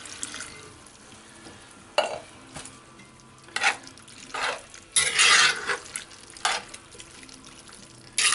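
A spoon stirring and scraping through bean stew in a cast iron pot, in about six separate strokes; the longest, about five seconds in, lasts nearly a second.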